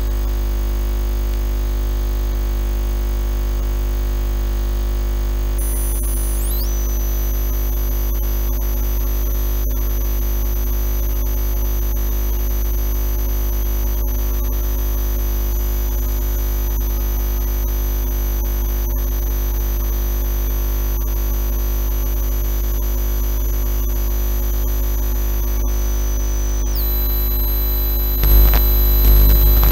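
A steady electronic hum and hiss, strongest at the deep low end, with thin high whistling tones that come in about six seconds in and step down in pitch near the end. The level rises in the last couple of seconds.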